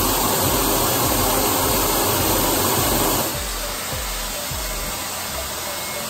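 Air blower of an Airsled appliance mover running with a steady rush of air, feeding the air casters through hoses, under background music with a beat. The rushing sound drops somewhat in level a little over three seconds in.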